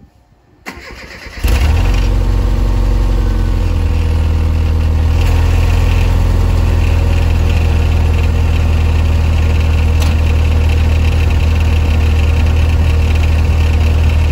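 Classic Rover Mini's four-cylinder A-series engine starting about a second and a half in, then idling steadily at the tailpipe. A rattle from the old exhaust muffler comes through: the abnormal noise that has the muffler being replaced.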